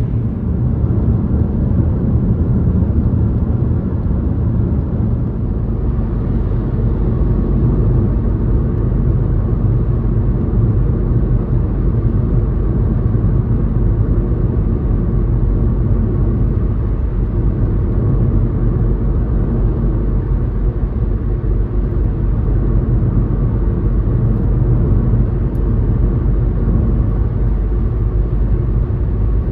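Car driving at freeway speed, heard from inside the cabin: a steady low rumble of road and engine noise.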